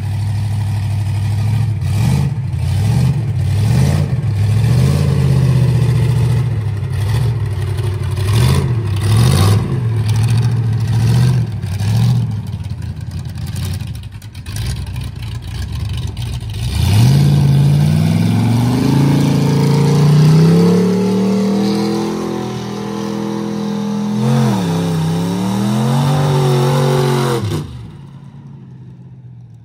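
Mud truck engine revving in repeated short bursts, then climbing steadily in revs about 17 seconds in and holding high. The revs dip once briefly, and the sound drops off suddenly near the end.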